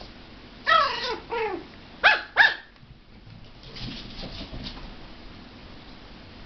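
A dog whining twice, each call falling in pitch, then two short sharp yips about two seconds in.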